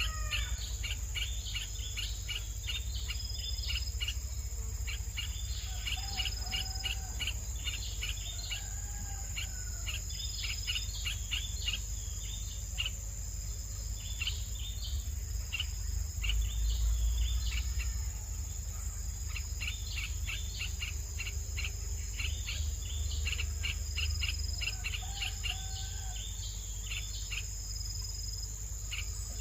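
Insects buzzing: a steady high drone with runs of rapid chirping ticks, a few short bird calls and a low rumble underneath.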